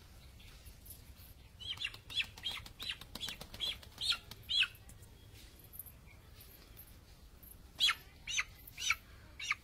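A chicken, held and carried by hand, calling in short, high squawks at about three a second: a run of about eight, a pause, then four more near the end.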